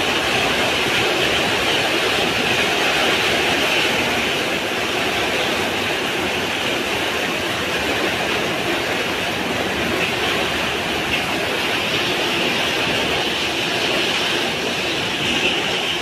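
Heavy rain pouring down in strong wind: a loud, steady rushing hiss with no let-up.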